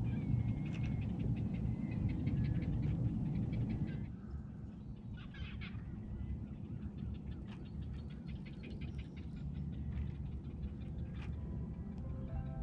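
Outdoor evening ambience: trains of rapid clicking animal calls and occasional chirps over a low steady rumble. The rumble drops in level about four seconds in.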